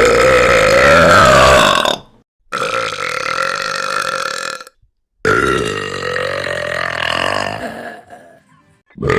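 Three long, loud, drawn-out burps voiced for female anime characters, one after another with short silent gaps, each lasting two to three seconds with a wavering pitch. A fourth begins at the very end.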